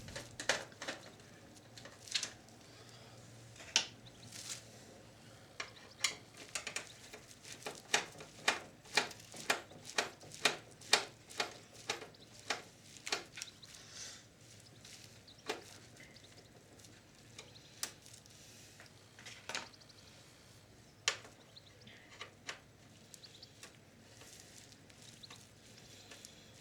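Light clicks and taps of parts being handled on a Sharp VC-573E video recorder's circuit board and chassis during disassembly, with a quick run of about two clicks a second in the middle.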